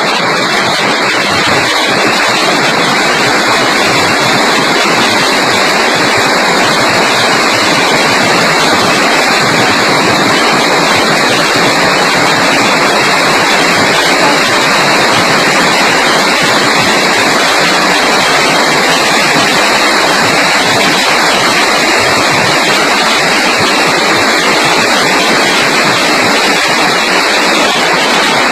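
Hail and heavy rain coming down, a loud, dense, steady noise with no letup.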